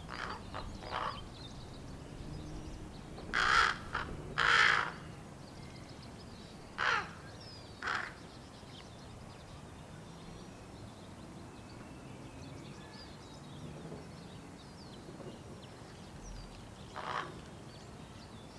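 Young ravens, fledglings waiting to be fed, giving harsh begging calls. There are a few soft calls at first and two loud, drawn-out calls about four seconds in. Two shorter calls follow soon after, and a single call comes near the end.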